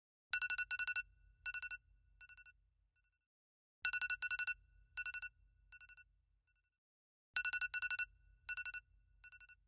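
Telephone-style trilling ring, repeating about every three and a half seconds. Each ring is a few quick trills followed by fainter, fading repeats like an echo.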